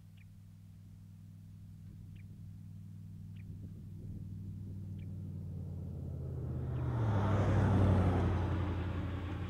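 A motor vehicle approaching and driving past: its engine hum grows steadily louder, drops in pitch as it passes about seven seconds in, and is loudest just after with tyre noise, then begins to fade. A few faint short high chirps come early on.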